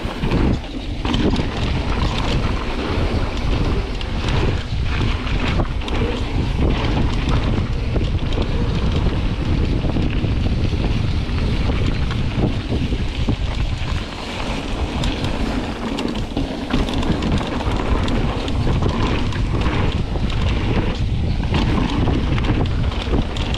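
Wind buffeting an action camera's microphone as a mountain bike rolls along a dirt trail, a steady low rumble with tyre noise and frequent small knocks and rattles from the bike over the ground.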